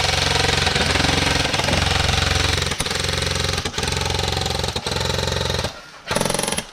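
Airsoft gun firing full auto close to the microphone: a long continuous burst of rapid shots that stops near the end, then one more short burst.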